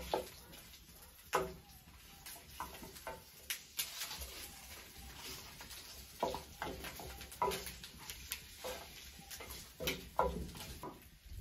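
A wooden spoon stirring pork pieces frying in a glazed clay cazuela, knocking and scraping against the clay at irregular moments, about once every second or two, over a faint frying sizzle.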